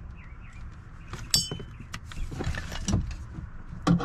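Light clicks and knocks of parts being handled inside a 2019 Chevy Impala's rear door as the window regulator assembly is taken out, with one short ringing metallic clink a little over a second in and a louder knock near the end.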